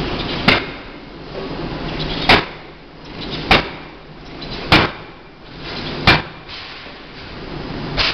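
Large Anyang industrial forging hammer striking a red-hot workpiece: six heavy, sharp blows, one every second and a half or so, over the steady rumble of the machine and shop.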